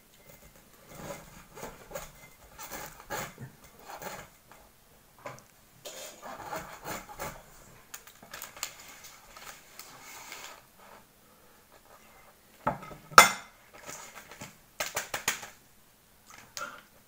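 A table knife sawing through the crust of a crusty white bread roll, a run of crackling, scraping strokes. A single sharp knock about thirteen seconds in, then a brief burst of plastic packet crinkling.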